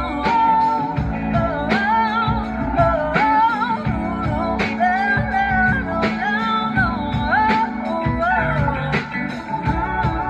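Live band playing a slow song: drums, bass guitar, keyboards and guitar, with a lead vocal melody that slides and bends over them.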